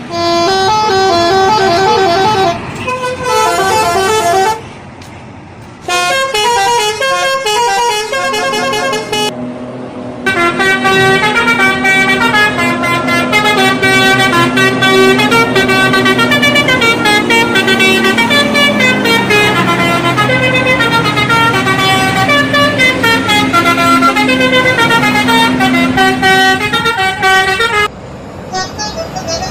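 Bus telolet horn, a set of air-horn trumpets switched in sequence, playing quick stepped melodies. Several short tunes come in the first nine seconds with a brief pause near the five-second mark, then one long tune runs from about ten seconds in until shortly before the end, over a lower held note.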